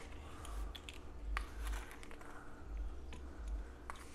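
Plastic measuring spoon scooping salt from its container, giving a few scattered light clicks and crunchy scrapes.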